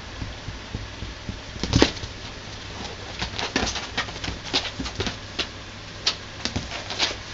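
Kitten playing: a string of irregular light taps, scuffles and knocks, the loudest about two seconds in, over a steady low hum.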